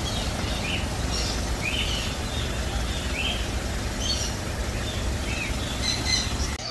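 Small caged birds giving short chirps, roughly one a second, over a steady low rumble.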